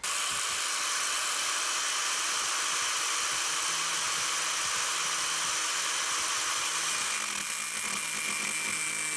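Angle grinder with a cut-off disc cutting through a short metal linkage rod, a steady grinding hiss from the disc on the metal.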